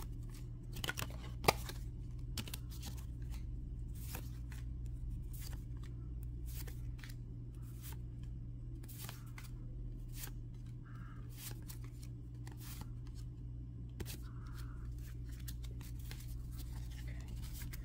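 Yu-Gi-Oh trading cards being handled one at a time, slid off a stack and set down on a table: a run of soft, irregular flicks and taps, with one sharper snap about one and a half seconds in, over a steady low hum.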